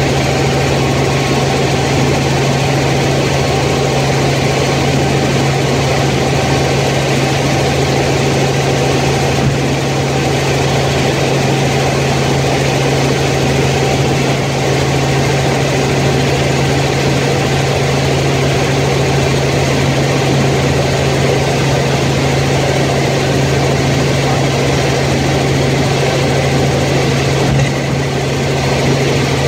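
Light helicopter in flight heard from inside the cabin: a steady drone of engine and rotors with a strong, even low hum.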